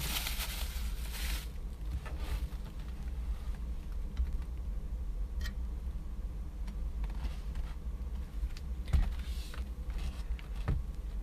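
Handling noise from a smartphone being moved and adjusted close to its microphone: rustling at the start, then scattered clicks and knocks over a steady low rumble.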